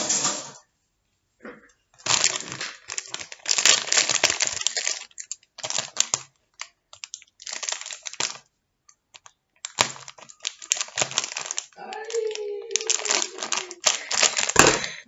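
Foil Doritos chip bag crinkling and crackling as it is handled and cut open with scissors, in irregular bursts with short pauses.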